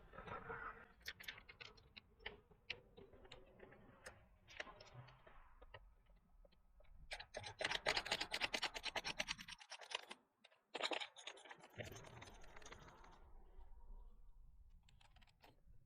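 A WTB Vulpine tubeless tire being worked onto a bike rim by hand: rubber bead scraping and rubbing on the rim with scattered clicks, and a dense run of rapid scratching about seven seconds in.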